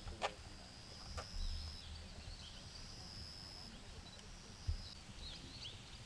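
Faint outdoor ambience: a thin, steady high-pitched tone that breaks off and resumes a few times, with short bird chirps. Two sharp clicks come in the first second and a half, and a low thump comes near the end.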